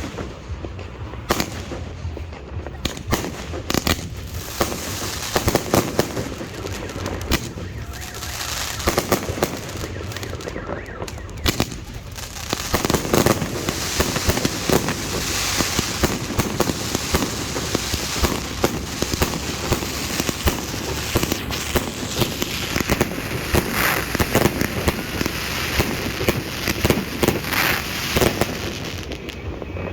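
Fireworks display going off: a rapid, dense run of bangs and crackling, growing louder and denser about twelve seconds in.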